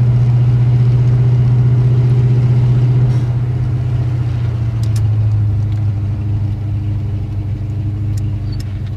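1988 Ford Mustang GT's 5.0 V8 running steadily while driving. About three seconds in, the engine eases off, its note dropping a little in pitch and getting quieter.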